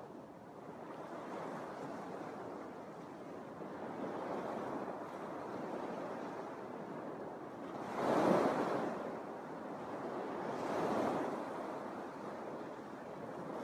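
Small Lake Michigan waves washing onto a sandy beach, a steady wash of surf with two louder breaks about eight and eleven seconds in.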